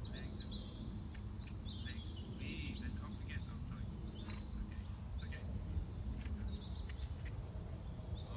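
Small birds chirping and twittering in quick, short notes, over a steady low rumble.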